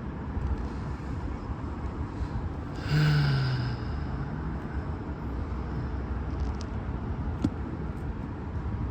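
A man's short wordless sound falling in pitch about three seconds in, a sigh or grunt of effort while pulling out a stubborn battery adhesive strip, over a steady low rumble. A couple of light clicks come near the end.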